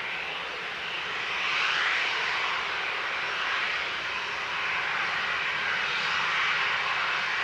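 Boeing 737-800's CFM56-7B turbofan engines running at low taxi thrust as the airliner lines up on the runway: a steady jet rush that grows a little louder about a second and a half in.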